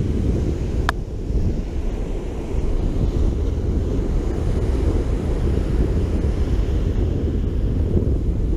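Wind buffeting the camera's microphone with a heavy rumble, over the wash of surf breaking on the beach; a single short click about a second in.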